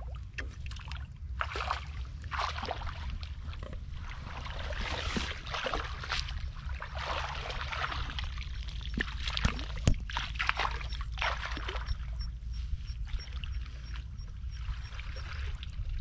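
Shallow water sloshing and splashing in irregular bursts, with one sharp knock about ten seconds in.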